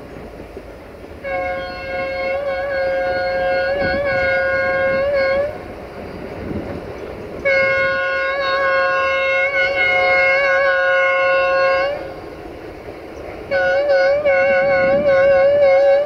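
Horn of an LDH1250 diesel-hydraulic locomotive sounding three long blasts of several seconds each, its pitch wavering at times during the blasts.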